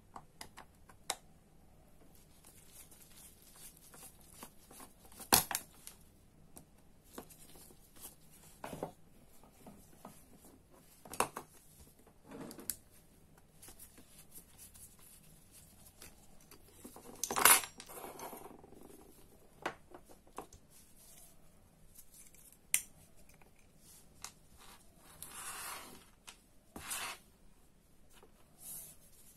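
Screwdriver and small metal parts of a Daiwa Seiko Coronet 5 direct-drive reel clicking and clinking as it is taken apart on a wooden bench: scattered light taps, with louder knocks about 5 and 17 seconds in and a longer scrape about 25 seconds in.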